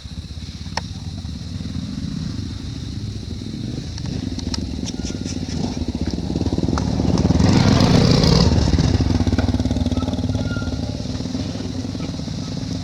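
An engine running steadily. It swells louder about seven seconds in and eases off again after about nine seconds.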